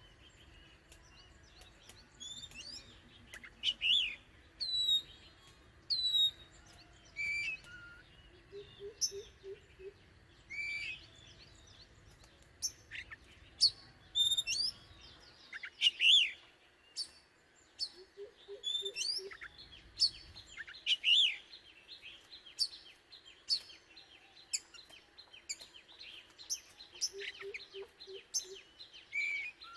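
White-rumped shama singing: a varied run of loud whistles, chirps and sharp clicks, in short phrases with brief pauses between them. A low, quick run of about four notes comes back three times beneath it.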